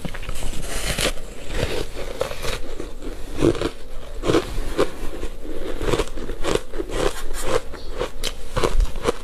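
Biting and chewing a block of soft, powdery ice coated in matcha powder: a bite into the block at the start, then steady crunching as she chews, about one or two crunches a second.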